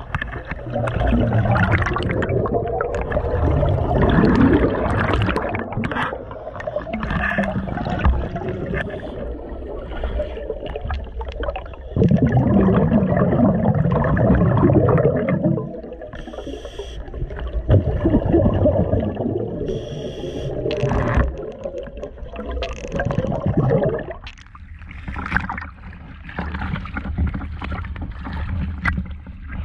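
Scuba divers' exhaled breath bubbling from their regulators, heard underwater: loud gurgling rushes that swell and fade every few seconds.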